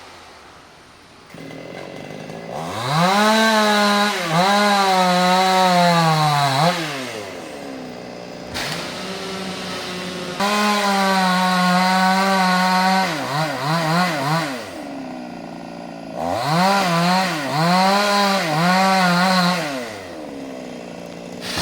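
Chainsaw revving up to full speed three times and dropping back to idle between, its pitch dipping briefly now and then while at speed, as it is used to cut an anjili tree.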